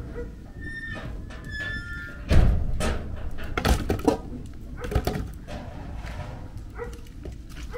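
Scattered knocks and thuds from a pan and firewood being handled at an outdoor wood-fired stove, the loudest a dull thump about two and a half seconds in. A few short high chirps sound in the first two seconds.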